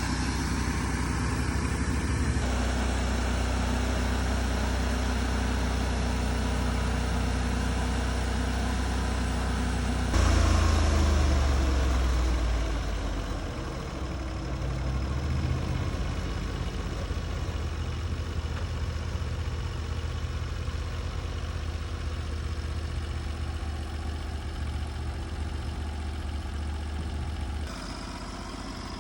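Engine of a portable bandsaw sawmill running steadily, getting louder about ten seconds in and easing back over the next few seconds, then dropping in level near the end.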